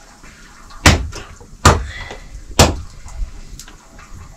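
Three heavy, sharp knocks on something hard, the first about a second in and the others under a second apart.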